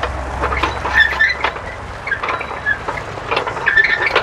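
Steady rush of water pouring from a tubewell pipe into a concrete tank, with scattered knocks and rustles as a hose is handled on a pump cart.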